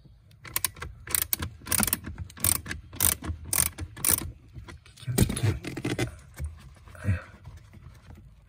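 Ratchet wrench with an 8 mm socket clicking in short runs, about two strokes a second, as it backs out the blower-fan screws, with a louder cluster of metallic clicks and clatter a little past the middle.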